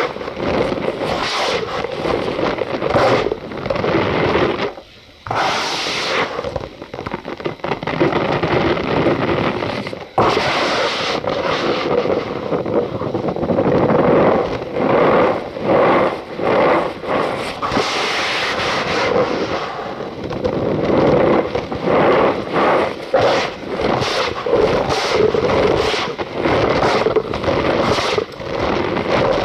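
Cornstarch powder being squeezed and crushed by hand, a continuous squeaky crunching with many small crackles, pausing briefly about five seconds in.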